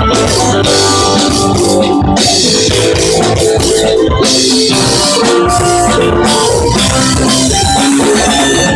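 Live band playing: drum kit, electric bass, electric guitar, violin and cello together in a steady rock groove, with the bowed strings holding long notes. The audio quality is poor.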